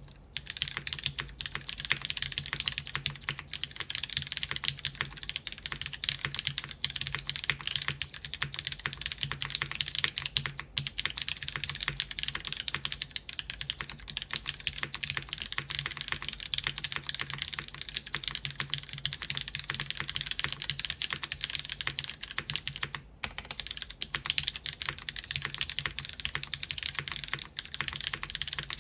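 Steady, fast typing on a mechanical keyboard with lubed Cherry MX Brown tactile switches on an aluminum plate in a polycarbonate case, with GMK keycaps: a dense run of key clicks and bottom-out clacks. Two short pauses in the typing come about ten seconds in and again near 23 seconds.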